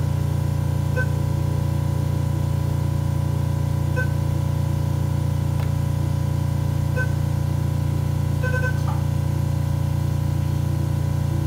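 A steady low hum with short electronic beeps from the medical equipment, about every three seconds, and a quick run of beeps about eight and a half seconds in.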